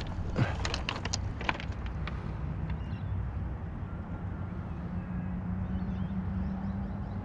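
Steady low engine hum, growing slightly stronger near the end, with a few sharp clicks and knocks in the first two seconds.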